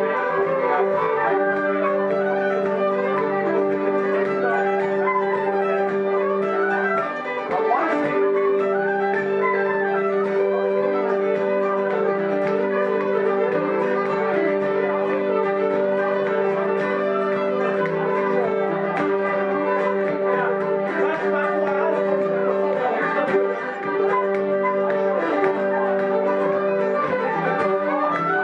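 Irish traditional tune played by a session group: Irish pipes sounding a steady drone under a running melody, with fiddle and wooden flute. The drone drops out briefly twice, about seven and twenty-three seconds in.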